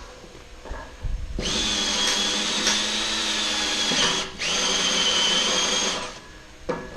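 Electric drill running in two steady runs of about two and a half seconds and just under two seconds, with a short break between and a high whine throughout, drilling a bolt hole in the wagon's steel frame.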